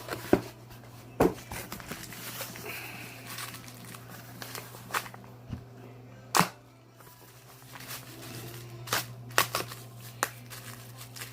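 Paper and packaging being handled during an unboxing: rustling with several sharp crackles and snaps, a cluster of them near the end, over a steady low hum.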